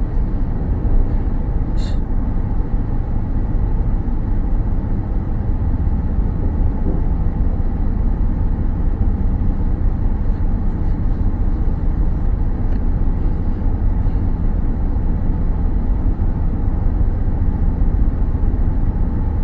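Steady low rumble of a car being driven along, with road and engine noise and no let-up. A faint tick comes about two seconds in.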